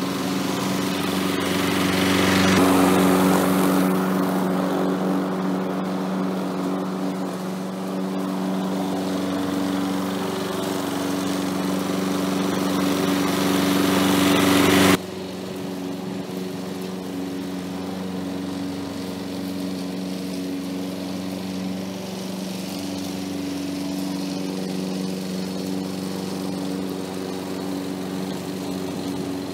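Walk-behind gas lawn mower engine running steadily while cutting grass, with a hiss over the steady engine hum. About halfway through, the sound drops suddenly to the same engine heard more quietly.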